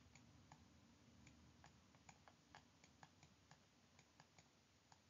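Near silence with faint light clicks, several a second at an uneven pace, from handwriting being entered on a computer.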